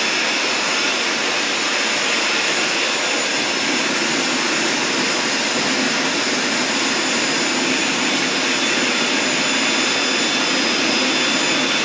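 Countertop blender motor running steadily at high speed, blending a load of fruit, vegetables and water, with a steady high whine over the motor noise.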